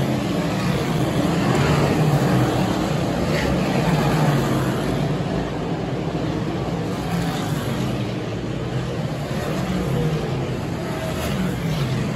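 A field of big-block dirt modified race cars running on the track, their engines blending into one steady, continuous sound with no single car standing out.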